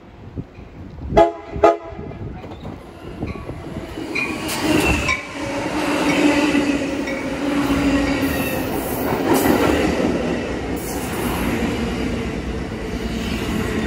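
Amtrak Pacific Surfliner passenger train sounding two short horn blasts, half a second apart, as it approaches, then its bilevel passenger cars running past close by in a steady rumble of wheels on rail that builds as they reach the platform.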